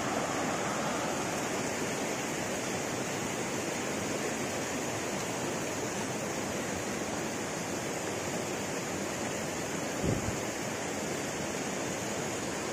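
Steady rushing of a rocky mountain river's rapids, with one brief low thump about ten seconds in.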